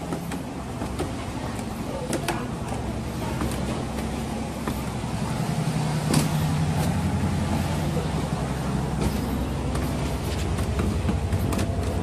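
An engine running steadily with a low hum, a little louder from about halfway through, with a few sharp clicks over it.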